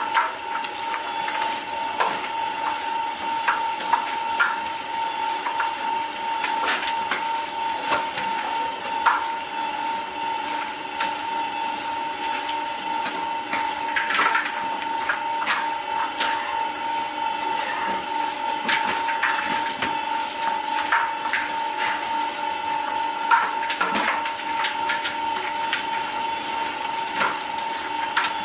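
A machine running with a steady, fairly high-pitched hum, with irregular clicks and knocks of handling and clatter throughout.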